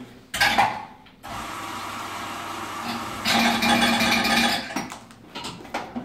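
Electric on-demand espresso grinder running steadily as it grinds a dose, louder for about a second and a half near the middle, after a short loud burst just before it starts.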